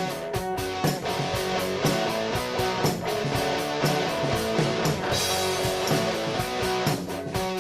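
Background music: guitar-led instrumental with a drum kit keeping a steady beat.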